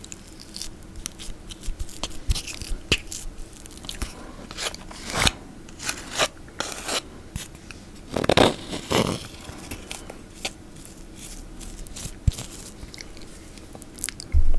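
Close-miked mouth sounds of eating peanut butter: irregular wet clicks and smacks, with a few louder smacks about halfway through.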